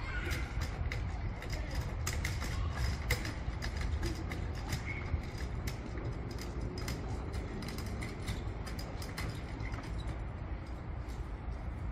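Outdoor ambience: a steady low rumble with many scattered light clicks, the clicks thinning out near the end.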